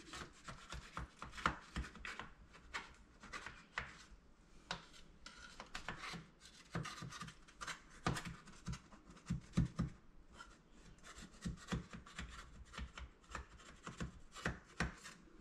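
Knife blade scraping around the inside wall of a metal springform pan, loosening the baked pie crust from the side: many short, irregular scrapes and rubs.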